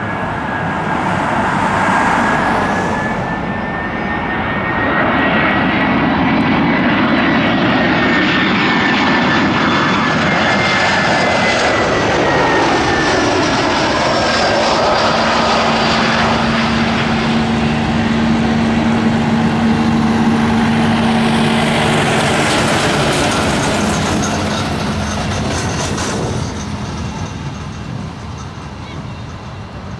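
Airbus A320-214 airliner on landing approach, its two CFM56-5B turbofan engines giving a loud, steady jet rumble with a high whine as it passes close by. The sound fades near the end as the aircraft reaches the runway.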